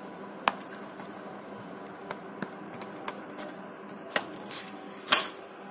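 Sharp plastic clicks and taps, about six of them, the loudest near the start and near the end, as a Microsoft Lumia 535 is handled and its snap-on back cover is pried off, over a faint steady hiss.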